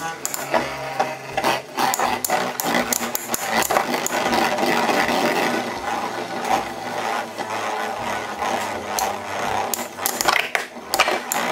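Two metal Infinity Nado 3 spinning tops whirring against a plastic arena floor, with a steady rattling scrape broken by many sharp clacks as they knock into each other.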